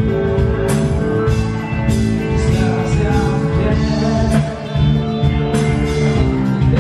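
Live band music: a man singing long held notes into the microphone over electric guitars and drums, with sharp cymbal or drum hits every second or so.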